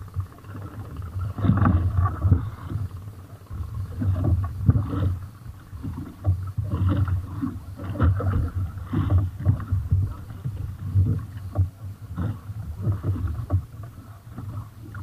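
Irregular knocking, rustling and splashing as a fine-mesh net holding tuna is hauled by hand over the gunwale of a small wooden outrigger boat. The fish are pulled free of the mesh onto the deck.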